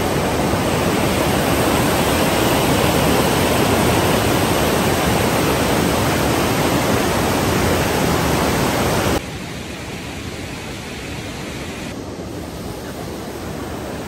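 Mountain stream rushing over boulders and small cascades: a steady, loud rush of water. About nine seconds in it drops abruptly to a quieter, steady rush.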